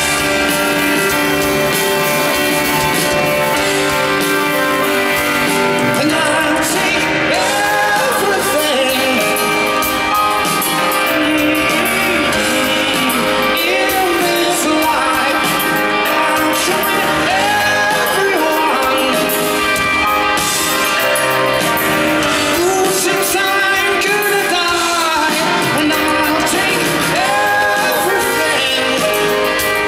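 Live pop-rock song played by a band with guitar, and a male lead singer carrying the melody, in a large concert hall with its reverberation.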